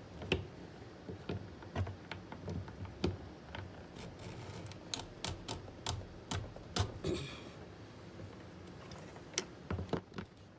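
Irregular light clicks and taps from small plastic and metal fuel-pump parts and seals being handled and fitted, with a brief scrape about seven seconds in.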